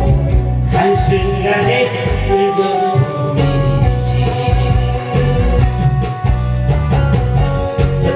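Kkangtong pumba street performance: a singer over loud amplified music with a heavy, steady bass.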